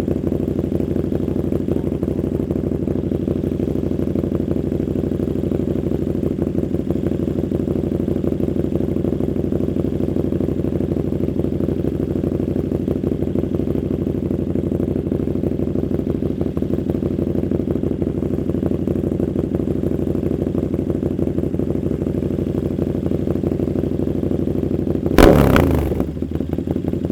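KTM Super Duke 1290 R's V-twin idling steadily through an aftermarket Austin Racing V3 150 mm exhaust, with one short, loud throttle blip near the end whose pitch falls straight back to idle.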